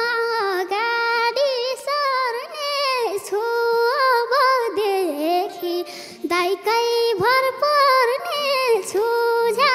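A young girl sings a Nepali folk (lok dohori) melody solo. She holds long notes and decorates them with quick turns, slides and vibrato, with a short break about six seconds in and no drums beneath.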